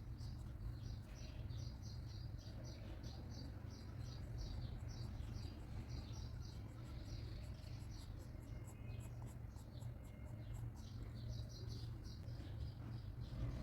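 Pencil scratching on paper in quick repeated short strokes, about three or four a second, as in hatching or shading, over a steady low hum.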